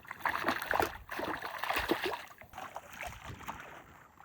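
Lake water splashing and sloshing irregularly as a person flounders after falling into the shallows, loudest in the first couple of seconds and dying down near the end.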